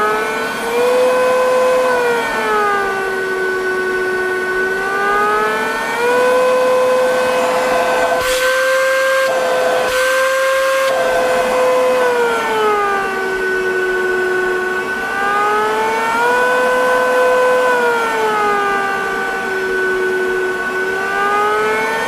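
Comfyer 22.2V cordless stick vacuum's motor running with a steady whine that steps up and down in pitch every few seconds as its speed control is switched between low and high. Twice near the middle, for about a second each, the lower part of the sound drops away and it turns hissier.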